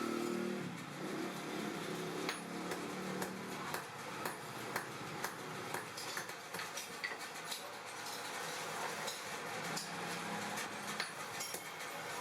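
Hammer tapping metal on an anvil in short, irregular blows, about one or two a second, over a low steady hum.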